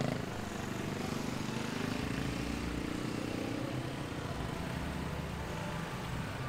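A motorbike engine running close by amid steady street noise, its pitch rising slightly as it passes during the first few seconds.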